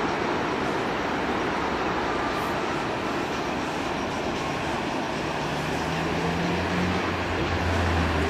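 Steady, loud rushing of wind and breaking sea surf, with a low hum joining about five seconds in.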